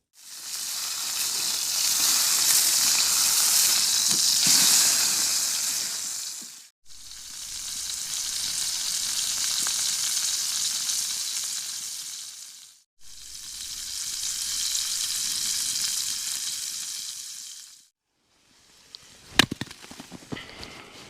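Steak frying in a titanium skillet on a hot-tent stove: a loud sizzle heard in three stretches of about six seconds, each fading in and out. Near the end come a single sharp crack and a few small crackles.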